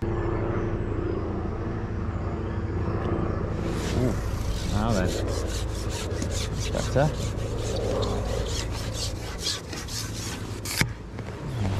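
Rubbing and scraping close to the microphone as a carbon fishing pole is slid out and handled against the angler's jacket, over a steady low rumble. A run of quick ticks starts about three and a half seconds in, and a sharp click comes near the end.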